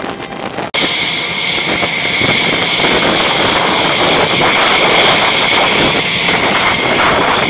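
Wind noise at first, then, after a sudden cut less than a second in, a close F-16 jet engine running loud and steady with a high whine.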